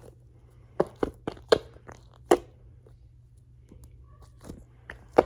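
A NeeDoh squishy toy being squeezed and handled close to the microphone: short, sharp, crackly clicks, about six in quick succession early on, a pause, then two more near the end.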